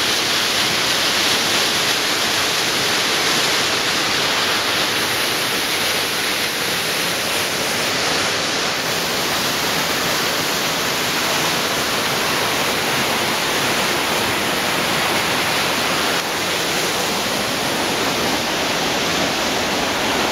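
Small waterfall pouring over rocks into a rushing stream: a steady, even rush of falling water, slightly quieter about sixteen seconds in.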